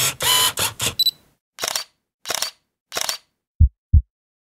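Camera sound effects: a quick run of clicks and whirs with a short high beep about a second in, then three single shutter-like clicks about two-thirds of a second apart. Near the end a deep double thump, like a heartbeat.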